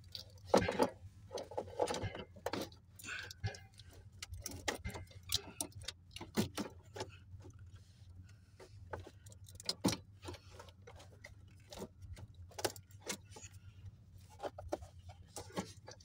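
Irregular clicks, knocks and scrapes of plastic parts as the blower motor and its squirrel-cage fan are worked by hand out of a cramped A/C blower housing of a Komatsu PC400 excavator. A steady low hum runs underneath.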